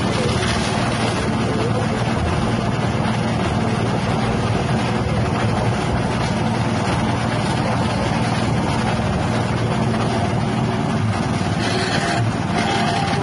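Grass chopper driven by a 6.5 hp petrol engine running steadily, its blades spinning. About a second before the end, grass fed into the top hopper adds a harsher chopping noise.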